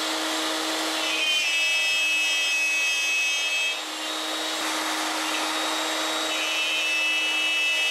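Table-mounted router running steadily while cutting a slot in a plywood-and-MDF blank fed along the fence. A higher whine comes in about a second in, fades near four seconds, and returns after about six seconds.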